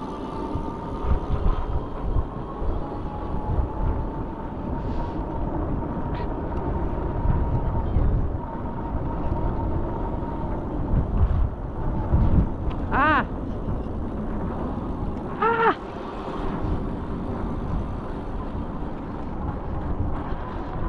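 Electric bike riding: wind buffeting the microphone and tyre rumble, with a steady motor whine through the first several seconds. Two short pitched calls cut in past the middle, a couple of seconds apart.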